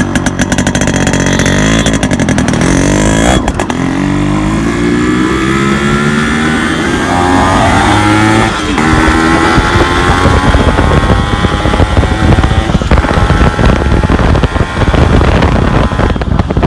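Yamaha RX100's two-stroke single-cylinder engine accelerating hard through the gears, its pitch climbing and then dropping at gear changes about three and a half and eight and a half seconds in. Wind noise on the microphone builds in the second half.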